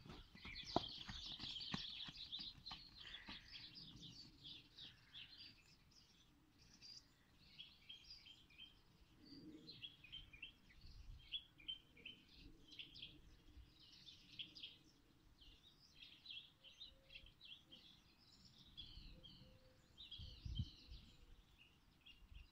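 Small birds chirping faintly, many short quick calls throughout, over a faint outdoor hiss. A few light knocks in the first three seconds.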